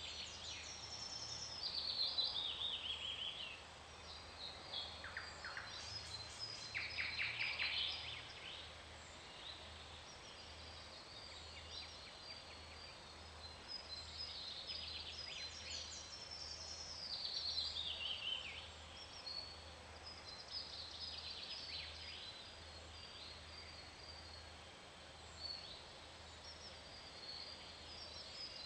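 Songbirds singing: high trilled phrases that fall in pitch, repeated several times, over a faint steady low hum.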